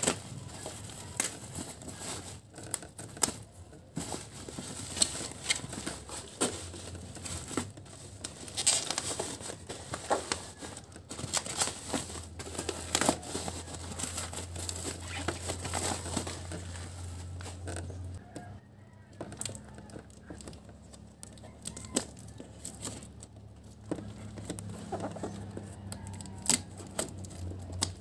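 A parcel being unwrapped by hand: plastic wrapping and packing tape crinkling, crumpling and tearing off a cardboard box, in many irregular crackles and rustles.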